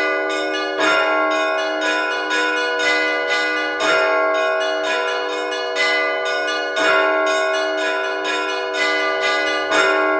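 Russian Orthodox church bells rung by hand in the simple weekday Rostov style. The smaller bells are struck in a quick, steady pattern over a heavier bell struck about every three seconds, and all of them keep ringing on.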